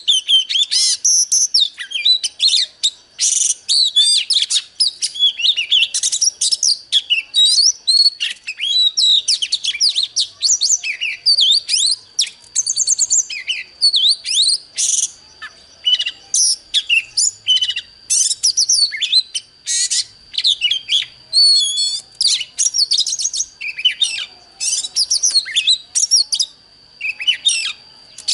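Oriental magpie-robin singing a loud, fast, varied song of whistles, trills and sharp notes in quick phrases with short gaps. A thin steady high tone runs beneath the song from about halfway through.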